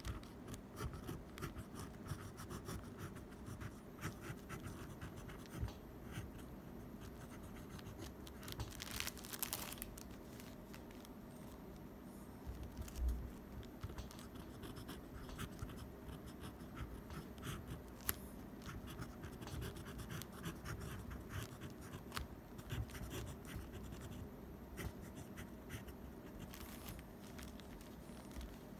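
Fountain pen nib scratching on paper in quick, irregular strokes and short pauses, writing Chinese characters in cursive script. A soft low thump about halfway through.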